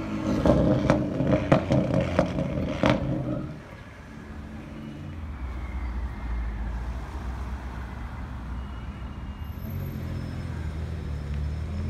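BMW M2's turbocharged straight-six accelerating hard with a loud exhaust, cracking and popping about five times over the first three seconds. It then drops to a quieter, steady low engine rumble.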